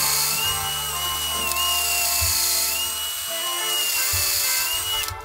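Cordless drill running under load as it bores into wood, its motor whine holding a steady pitch with brief dips, then stopping about five seconds in. Background music plays underneath.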